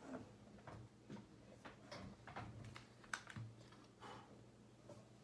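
Faint typing on a computer keyboard: scattered, irregular clicks over a low steady hum.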